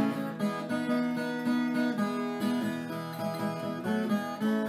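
Background music: an acoustic guitar playing a quick run of plucked and strummed notes.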